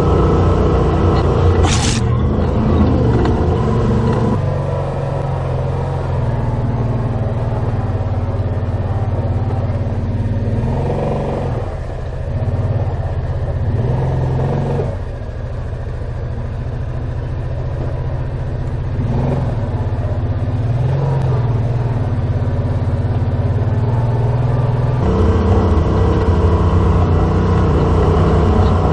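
Side-by-side UTV engine running as the machine crawls along a rocky trail, its pitch rising and falling with the throttle several times. A single sharp click about two seconds in.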